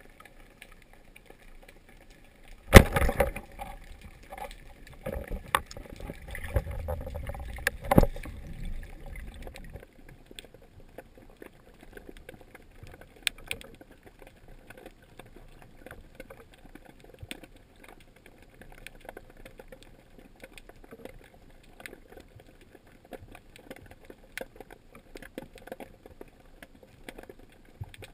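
Underwater sound through a camera's waterproof housing. A single sharp knock about three seconds in is the loudest thing. Knocks and rushing water follow for several seconds as the diver moves, then it settles to a faint underwater hiss with scattered small crackles.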